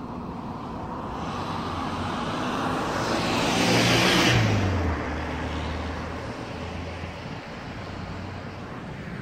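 A car passing close by: tyre and engine noise swell to a peak about four seconds in, then the engine note drops in pitch as it moves away and fades.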